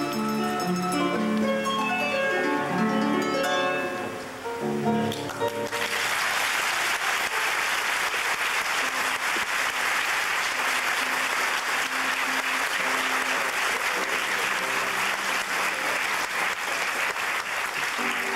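Paraguayan harp playing the last notes of a piece, which ends about five seconds in. Audience applause follows for the rest, with faint plucked harp notes under it.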